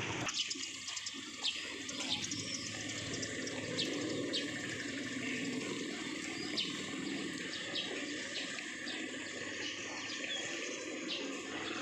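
Steady rush of running water, with faint short high ticks scattered through it.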